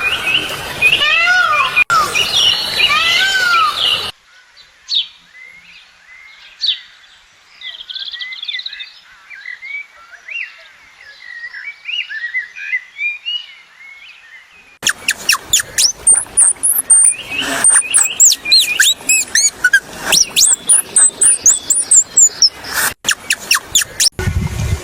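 Birds calling and chirping in three stretches. First come loud, repeated arching calls, then a much fainter mix of short chirps, then about ten seconds of loud, rapid chirps and whistles.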